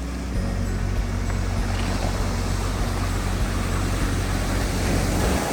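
Pacific surf on a beach of smooth rounded stones: waves wash in and the backwash drags the pebbles against one another in a low, rolling rattle, over a steady low rumble that cuts off near the end.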